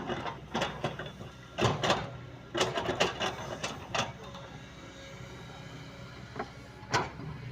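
Kobelco excavator working: its engine runs with a steady low hum under clusters of sharp clanks and scrapes, the loudest about two seconds in and again near the end.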